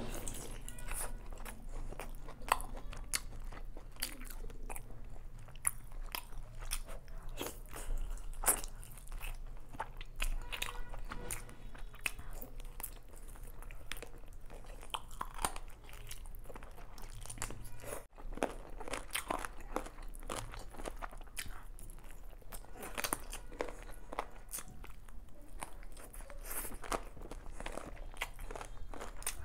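A person biting and chewing chicken and rice from chicken biryani eaten by hand, close to the microphone, with many short, irregular mouth clicks throughout.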